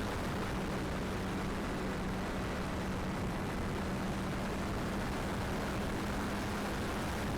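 Strong wind buffeting the microphone, with the steady low hum of the radio-controlled Durafly Excalibur V2's motor and propeller under it.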